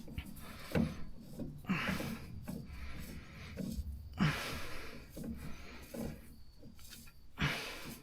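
Short, irregular rustling and knocking handling noises close to the microphone, four or five of them a second or more apart.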